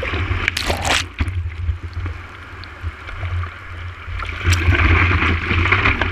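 Surf whitewater rushing and splashing over a surfboard-mounted GoPro, with a steady low rumble of water and wind on the camera housing. A loud splash comes about a second in, the water goes quieter through the middle, and the rushing builds again near the end.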